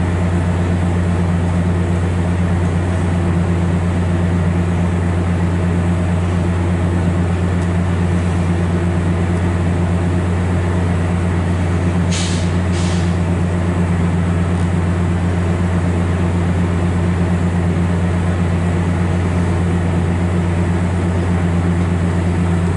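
Steady low mechanical hum from a MARC bilevel commuter train standing at the platform. About twelve seconds in come two short, sharp hisses of air, close together.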